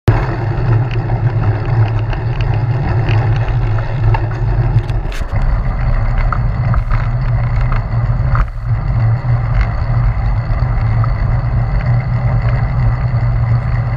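Steady wind buffeting and road rumble on the microphone of a handlebar-mounted camera on a moving road bike, with a few faint clicks.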